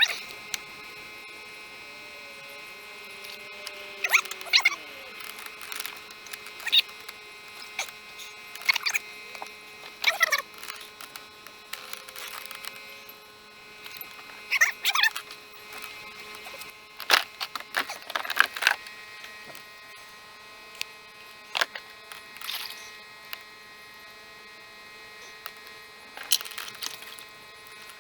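A steady electrical hum, with about a dozen short, irregular knocks and scrapes on top of it.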